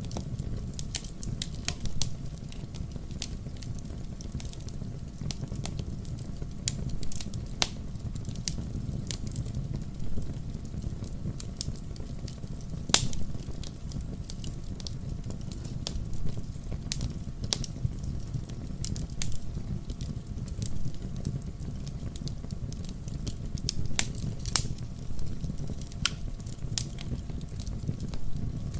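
Fire burning in a fireplace, crackling: a steady low rumble with many sharp, irregular pops and snaps, the loudest about 13 seconds in.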